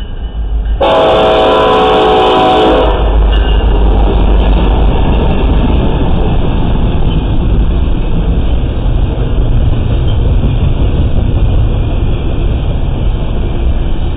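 Diesel locomotive horn sounding one blast of about two seconds, starting about a second in, as an eastbound intermodal led by an EMD SD70ACe with two GE units nears the crossing. The three-unit diesel consist and the double-stacked container cars then roll past at speed in a loud, steady rumble of engines and wheels.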